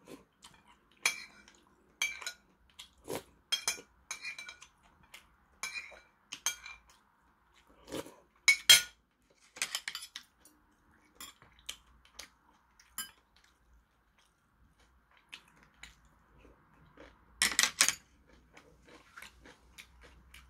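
Metal spoon clinking and scraping against a porcelain soup bowl: a scatter of short sharp clinks, some with a brief ring, with louder clatters about eight seconds in and again near the end.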